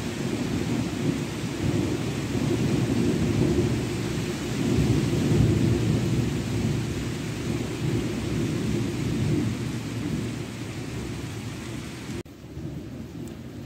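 A long rolling rumble of thunder swells over the first few seconds and slowly dies away, over a steady hiss of rain. Near the end the hiss cuts off abruptly.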